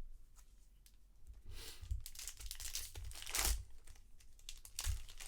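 Foil trading-card pack wrapper being torn open and crinkled, in a few rustling bursts, the longest about two seconds in.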